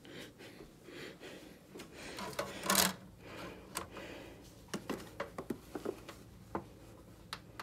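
Handling noise: rubbing and rustling with scattered light clicks and knocks, and one louder rustling burst a little under three seconds in.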